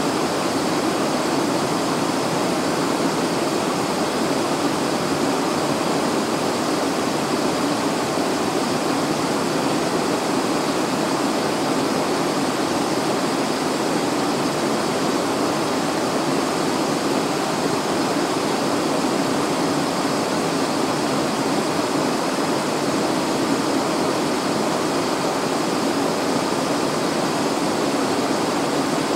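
Steady cockpit noise of a Cessna Citation Encore business jet on final approach: an even rush of airflow and engine noise heard inside the cabin.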